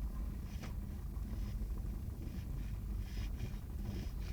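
Beagle puppy snoring softly, short breathy snores about once a second, over a steady low rumble.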